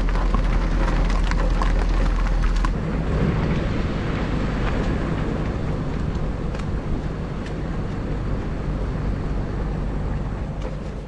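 Vehicle running while towing a trailer over rough ground, with clattering knocks over the first few seconds and wind rumble on the microphone.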